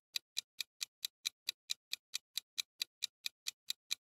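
Countdown-timer sound effect: a clock ticking evenly, about four to five sharp ticks a second, counting down the time left to answer.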